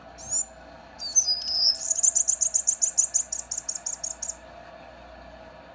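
Temminck's seedeater (Sporophila falcirostris), kept as a pet 'mountain canary', singing: a short high chirp, then a song phrase that runs into a fast, even trill of high notes, about eight a second, which stops a little over four seconds in.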